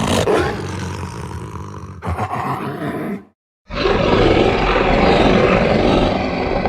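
Werewolf roar sound effects: a rough roar of about three seconds with a fresh burst near the two-second mark, a brief silence, then a longer, louder roar.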